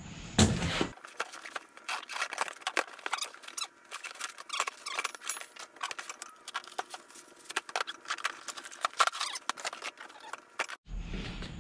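Cardboard box flaps and plastic-wrapped parts rustling and crinkling as a shipping box is opened and its bagged hardware is taken out: a busy run of irregular light crackles and taps.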